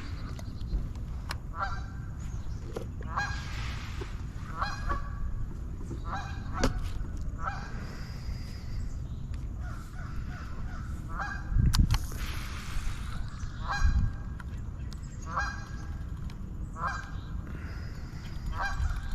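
Geese honking over and over, many short calls. A low steady rumble runs underneath, and two low thumps stand out about twelve and fourteen seconds in.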